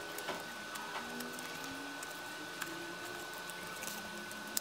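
Snap-off cutter knife slicing slowly through thick corrugated cardboard: faint scraping with a few small clicks as the blade works through.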